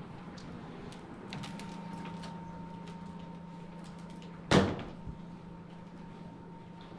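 A steady low hum with a few faint ticks, broken about four and a half seconds in by a single loud bang like a heavy door slamming shut.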